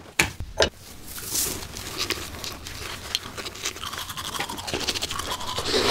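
A few knocks and handling sounds, then a toothbrush scrubbing teeth in quick, short, scratchy strokes.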